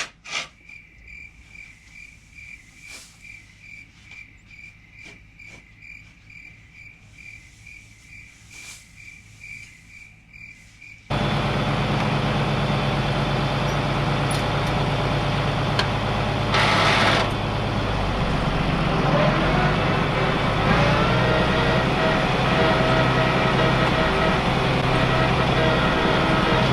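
A quiet stretch with a steady high chirp repeating about twice a second, then, about eleven seconds in, a tractor's diesel engine cuts in loud and keeps running. Its note shifts a little near the end.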